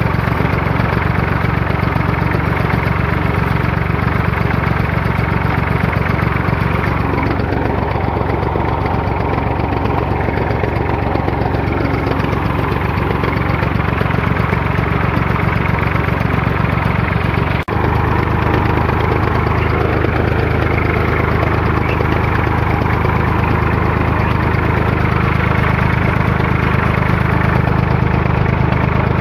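Tractor engine running steadily while powering a mounted boom sprayer at work. About 18 seconds in there is a brief click and dip, after which the engine's tone is slightly different.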